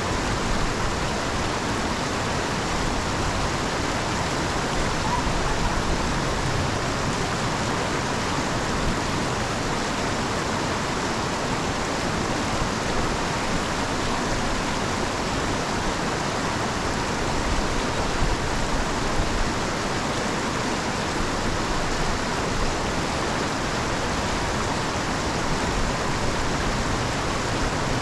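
Steady rush of rainwater and floodwater pouring into a street storm drain, with rain falling.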